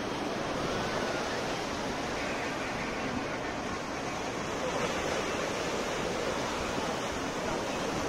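Sea surf breaking and washing in: a steady, continuous rush of water.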